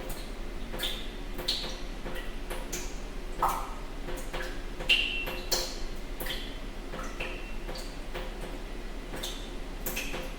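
Rain with single large drops plinking two or three times a second, each a sharp tick with a short ringing note at a different pitch, over a steady hiss.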